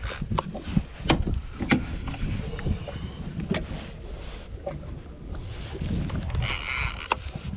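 Big gold conventional reel and bent rod under load while fighting a large white sturgeon: several sharp clicks and a short rasping burst near the end, over low wind and boat rumble.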